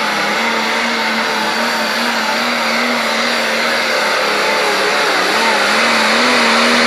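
Turbocharged diesel engine of a Case IH Pro Stock pulling tractor running flat out under the load of a weight-transfer sled. It is a loud, steady drone whose pitch wavers slightly and which grows a little louder toward the end.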